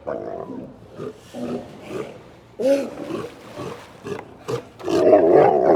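Sea lions calling: a string of short barks, one with a pitch that rises and falls about halfway through, and a longer, louder call near the end.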